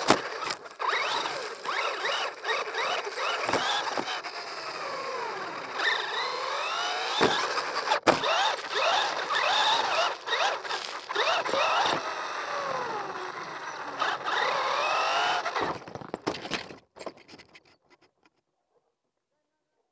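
Traxxas RC car's motor and drivetrain whining, repeatedly rising and falling in pitch as the throttle is worked, with scattered knocks. It stops about three-quarters of the way in.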